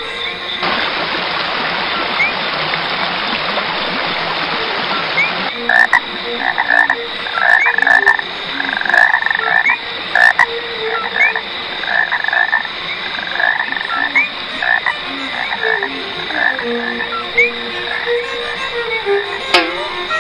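A steady hiss for the first five seconds or so, then frogs croaking, a chorus of short repeated calls about one or two a second that runs on to the end.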